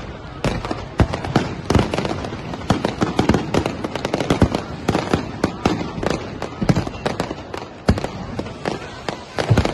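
Fireworks display: aerial fireworks bursting overhead in a dense, unbroken run of bangs, several a second, over constant crackling.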